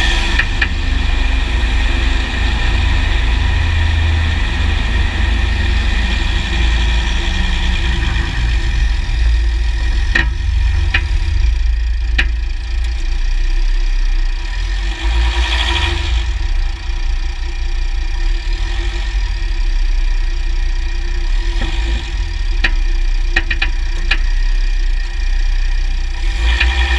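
Underbody sound of a 2009 Jeep Grand Cherokee WK's 3.0 CRD V6 diesel and driveline, heard from the skid plate: a steady low rumble with sharp clicks, a few single ones about ten to thirteen seconds in and a quicker run of them in the last few seconds. The clicks are the unexplained drivetrain clicking the owner is chasing alongside a clunk on loading and unloading the drivetrain.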